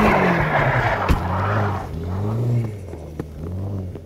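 Car engine revving up and down over and over as the car pulls away on a snowy road, with a rushing tyre noise in the first half. It fades as the car goes off into the distance.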